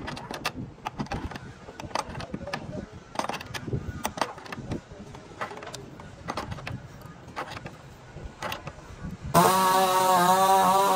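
Metal clinks and knocks from a steel bolt clamp being turned and set against the wooden hull planking, an irregular run of small sharp taps. About nine seconds in, it cuts to loud, droning, chant-like music with steady held pitches.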